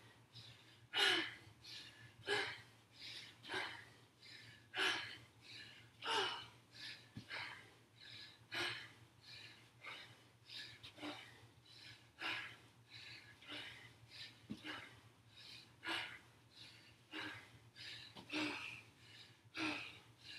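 A woman's heavy breathing during a dumbbell lunge-and-kick exercise: short, hard breaths out about once a second, in an uneven rhythm.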